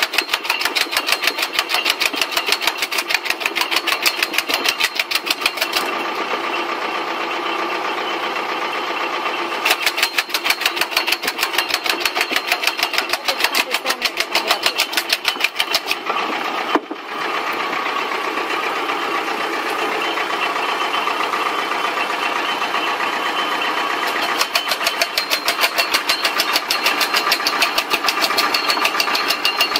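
Tractor-PTO-driven homemade firewood cutter running with the tractor engine, making a rapid, even series of chopping knocks as a thin pole is fed in and cut into short billets. The knocking pauses twice, leaving a steadier running sound.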